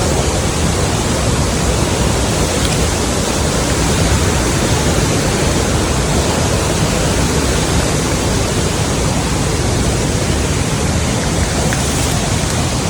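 A small waterfall pouring steadily: a loud, even rush of falling water.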